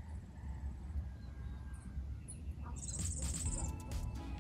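Quiet bush ambience with a steady low rumble of wind, and a brief high, rapid chirping about three seconds in, with a few faint clicks around it.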